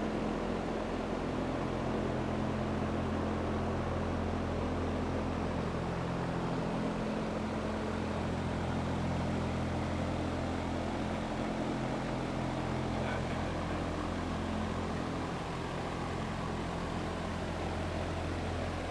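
Steady low mechanical drone with several held low tones over an even hiss.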